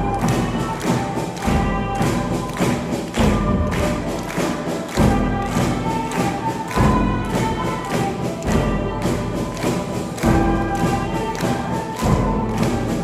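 A school ensemble playing music live, with many quick notes over a strong low beat that comes about every one and a half to two seconds.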